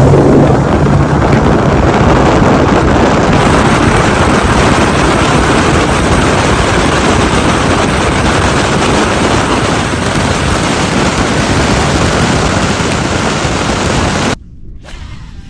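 Bass boat running across the lake at speed: outboard motor under a loud, steady rush of wind on the microphone. It cuts off abruptly near the end.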